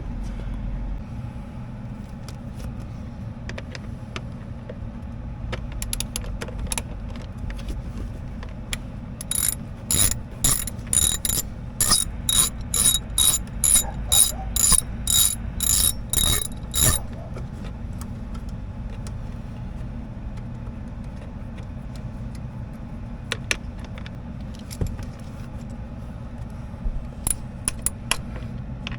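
Ratchet wrench with a 10 mm socket clicking as it backs out console mounting bolts: a run of sharp clicks about two a second for several seconds in the middle, with a few scattered clicks before and after, over a steady low hum.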